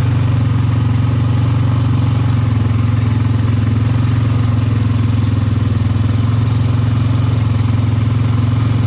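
ATV engine running at a steady low speed while the quad drives along a farm trail, a constant low drone with no revving.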